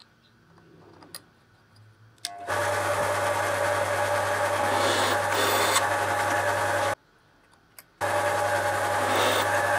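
Drill press motor running steadily with a low hum while the bit cuts into a brass plate. It starts abruptly a couple of seconds in, stops dead for about a second near the end, then runs again. Before it, only a few small clicks of steel pins being handled.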